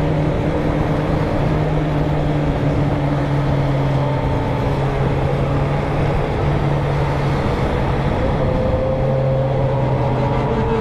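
Sport motorcycle with a straight-pipe 4-into-1 exhaust running at a steady cruising speed while riding. The engine note holds level and dips slightly in pitch a few times, over a constant rush of road noise.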